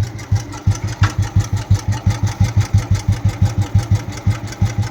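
1978 Royal Enfield Bullet B1-series single-cylinder engine idling with a slow, even thump, about seven or eight beats a second. The low idle speed comes from its heavy crankshaft, over 10 kg.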